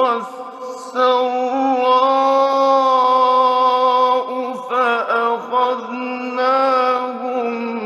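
Male Quran reciter's voice in melodic tajweed recitation, holding long, drawn-out notes with wavering ornamental turns between them, from an old radio recording.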